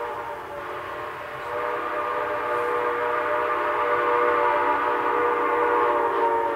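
Steam locomotive's chime whistle sounding one long, steady blast of several notes together over a hiss of steam, growing louder about one and a half seconds in.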